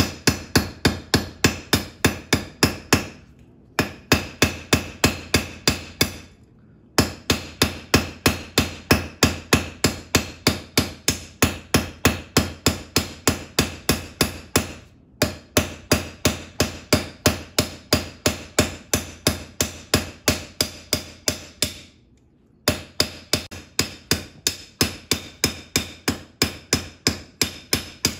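Ball peen hammer peening over a 1/4-inch rivet joining the halves of a pair of tongs on the anvil, mushrooming its head. Quick, even metal-on-metal strikes with a ringing tail, about four a second, in several runs broken by short pauses.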